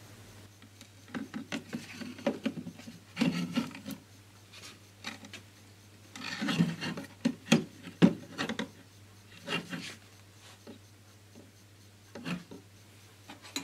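Hands working on the speaker wiring inside the open case of a cassette/CD recorder during re-soldering, making irregular rubbing and scraping handling noises. The noises come scattered and uneven, the loudest about six to eight seconds in, over a faint steady low hum.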